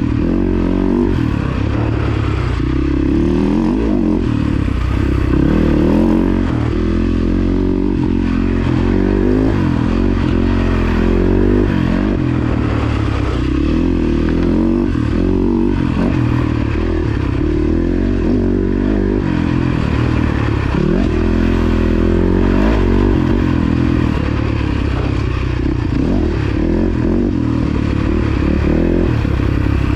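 Husaberg FX450 dirt bike's single-cylinder four-stroke engine being ridden along a trail, its pitch rising and falling over and over as the throttle is opened and closed.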